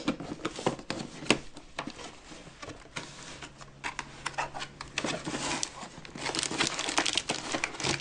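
Packaging being handled and crinkled, a run of irregular crackles that grows busier about halfway through.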